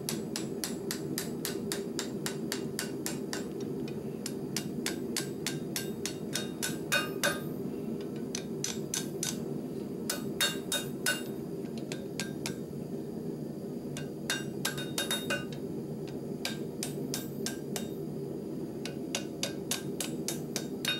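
Hand hammer striking red-hot 3/8-inch steel rebar on a block anvil, folding it over into a loop: runs of sharp metallic blows, about two to three a second with short pauses, over a steady low drone.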